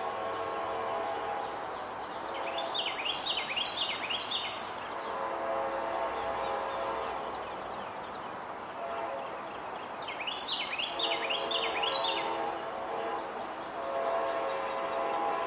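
Locomotive air horn of an approaching CSX GE AC44CW, heard faint and distant, sounding in long blasts on and off over the low rumble of the train. Twice a short run of high repeated chirps comes in above it.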